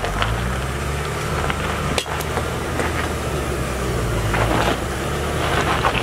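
Jeep Wrangler's engine running with a steady low drone, with scattered knocks and clinks over it, the sharpest about two seconds in.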